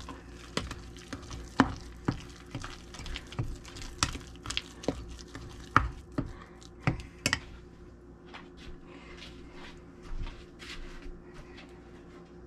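Metal spoon stirring thick cake batter in a stainless steel mixing bowl, with irregular clinks and scrapes against the bowl about once or twice a second. The clinks thin out and grow fainter about halfway through.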